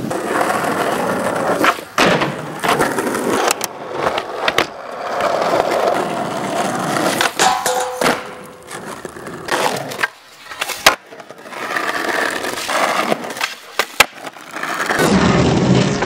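Skateboard wheels rolling on asphalt, broken by sharp clacks of tails popping, trucks grinding along a low metal flat bar and boards slapping down on landings. Several short skate clips run one after another, with hard cuts between them.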